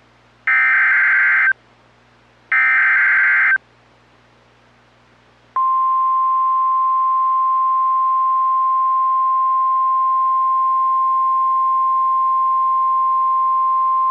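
Emergency Alert System SAME header on NOAA Weather Radio: two one-second bursts of digital data tones about a second apart. About five and a half seconds in, the steady 1050 Hz weather radio alert tone starts and holds. Together they announce that a new warning is about to be read.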